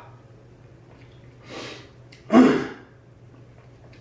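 A man's disgusted reaction to the nasty taste of NyQuil: a breathy exhale, then about two and a half seconds in a short, loud voiced gasp.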